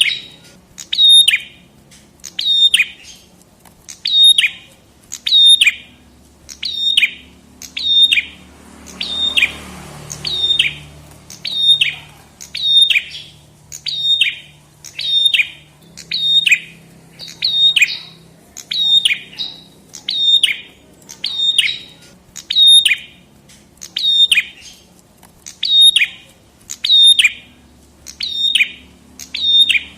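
A prenjak kepala merah (red-headed prenjak) singing a high, sharp call repeated steadily about once a second, each note a quick downward sweep.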